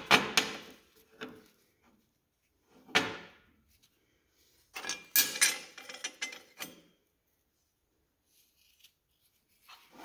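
Metal transfer case pump housing parts being handled and set down on a metal workbench: a few separate clattering knocks in the first three seconds, then a busier run of clinks and scrapes around five to seven seconds in.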